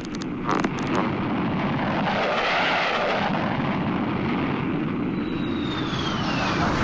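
Aircraft engine flyby sound effect: a steady engine drone swells about two seconds in, and a thin high whine falls in pitch near the end, like a plane passing. A few short clicks come just before the drone settles.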